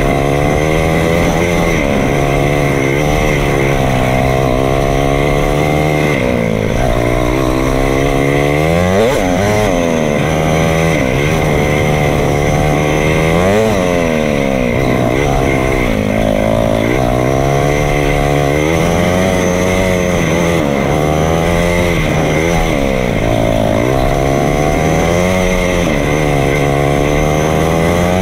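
2018 KTM 500EXC-F dirt bike's single-cylinder four-stroke engine running under load, its revs rising and falling again and again with the throttle. A few times the revs dip sharply and climb straight back.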